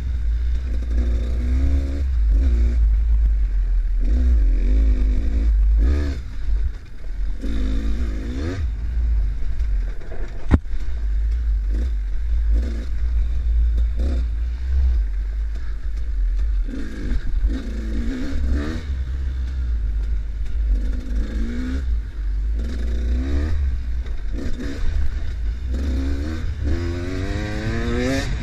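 Enduro dirt bike engine revving up and easing off again and again while ridden along a trail, heard from the bike itself, over a heavy low rumble. A single sharp knock about ten seconds in.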